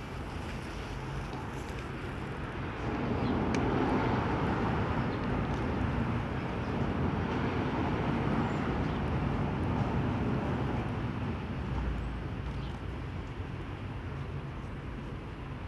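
Outdoor background rumble and hiss, swelling from about three seconds in and easing off near the end.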